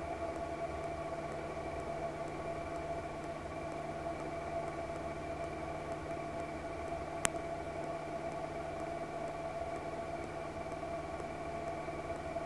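1946 Ercoupe 415-C's piston engine running at a steady drone, heard from inside the cabin in flight. A single sharp click comes about seven seconds in.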